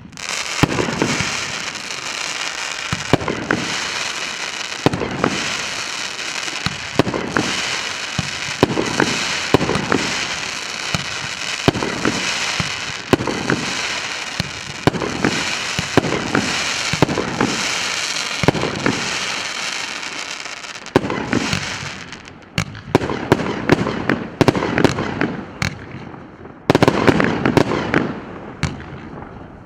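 Multi-shot firework cake (114-shot PC913 battery, 1.2-inch and 1.75-inch shots) firing in rapid succession: a thump about once a second over a continuous noisy crackle. After about 21 seconds the shots come as separate louder bursts with short gaps between them.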